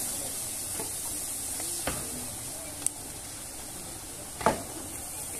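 Meat frying in large wood-fired woks, a steady sizzle while a long wooden paddle stirs. A few short knocks, the loudest about four and a half seconds in.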